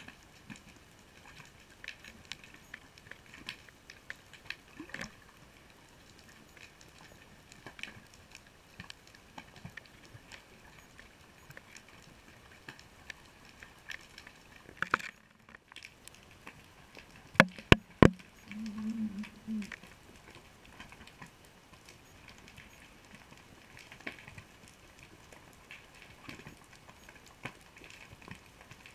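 Underwater reef crackle heard through an underwater camera: a steady patter of many small clicks. Two sharp knocks come about 17 and 18 seconds in, followed by a brief low hum.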